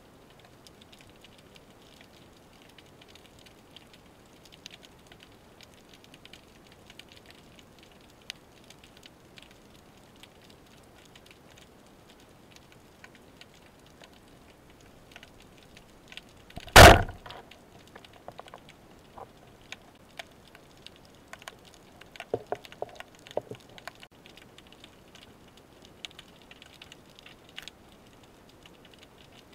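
Underwater: a faint, constant crackle of small clicks, broken about seventeen seconds in by one loud, sharp crack, with a few softer clicks several seconds later.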